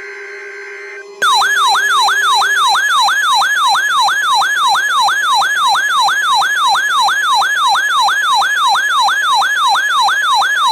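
The last second of a buzzing Emergency Alert System data burst, followed about a second in by a loud electronic siren-like alert tone. The tone is a fast falling wail repeating about three and a half times a second, announcing a NOAA Weather Radio Required Weekly Test.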